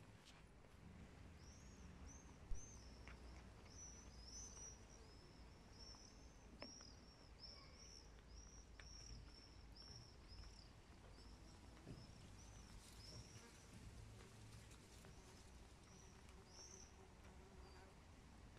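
Faint outdoor ambience with a small bird chirping over and over, short high arched notes about twice a second that thin out near the end. A single sharp click stands out about two and a half seconds in.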